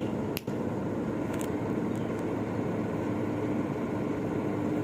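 Steady engine noise with a faint constant hum, and two sharp clicks in the first half-second.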